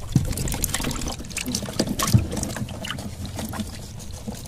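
Scattered knocks and clatter from handling aboard a small boat at the water's edge, over a steady low rumble.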